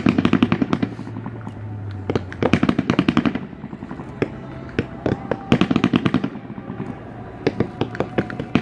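Fireworks display: rapid salvos of bangs and crackles, coming in four quick runs a couple of seconds apart.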